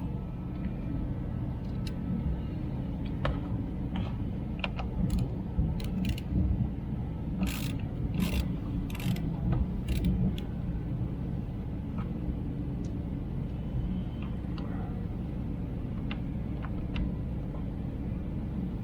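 Hand tools clicking and tapping against metal and plastic while screws are worked out of a steering wheel: scattered sharp clicks, thickest a little past the middle, over a steady low rumble.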